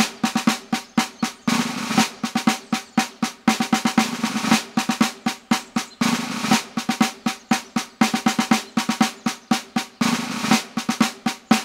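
A small drum beaten with sticks in a quick, steady rhythm, with short rolls every few seconds.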